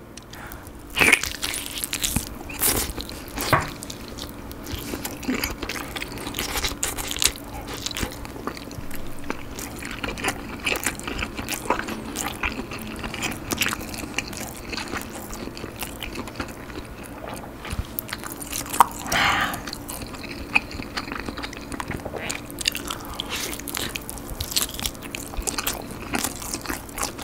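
Close-miked biting, tearing and chewing of an air-fried, pepper-seasoned chicken drumstick, with repeated sharp bites through the meat and skin and wet chewing between them.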